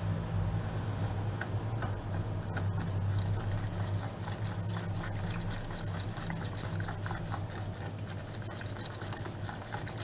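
Wire whisk beating a thin liquid cocoa, milk and flour cream mixture in a stainless steel bowl: wet sloshing with quick light ticks of the whisk against the bowl, over a steady low hum.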